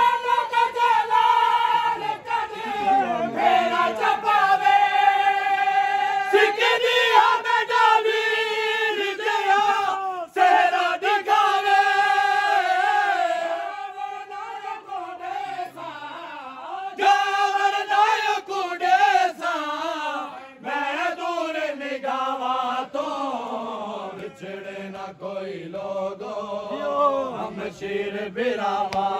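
Men's voices chanting a noha, a Shia Muharram lament, in long drawn-out melodic lines with brief pauses between phrases.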